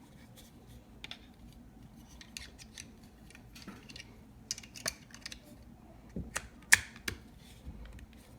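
Scattered light clicks and snaps of hard plastic parts being handled, with one sharp click a little before the end.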